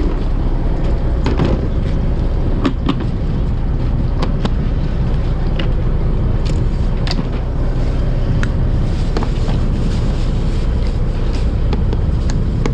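Fishing boat's engine running with a steady low drone, with scattered sharp clicks of plastic tackle boxes and lures being handled close by.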